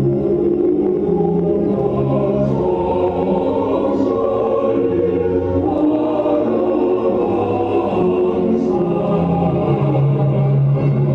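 Choral music: a choir singing slow, sustained chords.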